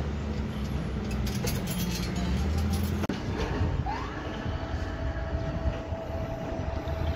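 Low steady machinery hum with a few light metallic clinks. About three seconds in the sound changes: a motor whine rises in pitch and then holds steady, the tower crane's hoist lifting its load.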